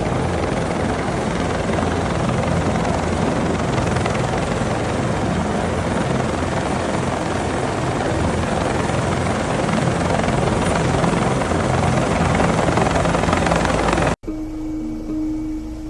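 Helicopter rotor and engine noise, loud and steady with a low pulsing beat, cutting off abruptly about fourteen seconds in, after which soft background music starts.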